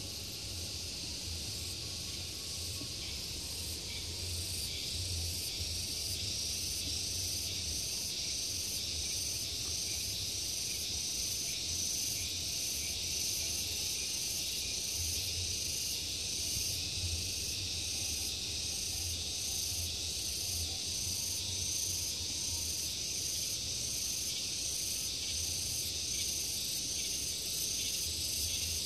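Steady chorus of insects, a continuous high-pitched buzzing drone that grows a little louder a few seconds in, with a faint low rumble underneath.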